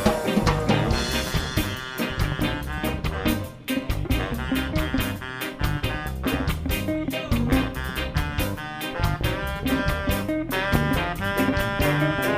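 Live band playing an up-tempo instrumental passage: a drum kit keeps a fast, steady beat under held melody notes.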